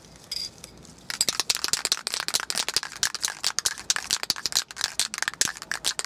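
Aerosol can of clear semi-gloss polyurethane being shaken, its mixing ball rattling in quick, irregular clacks that start about a second in.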